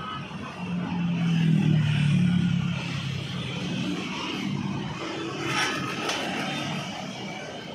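Honda GX160 single-cylinder four-stroke engine on a Tigon RM80 rammer running. It gets louder for a couple of seconds soon after the start, then settles to a steadier run, with a few sharp clicks a little past the middle.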